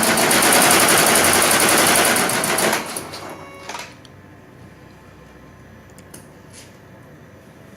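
Computerised embroidery machine stitching with a fast, even run of needle strokes, which stops abruptly about three seconds in. A few faint clicks follow.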